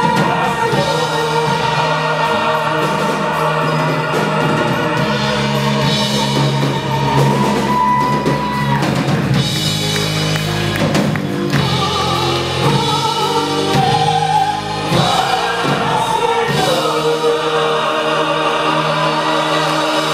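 Live operatic-pop performance: a four-man vocal group and a soprano singing with a large choir over a band of drums, electric guitar and keyboards. A high note is held through roughly the first nine seconds.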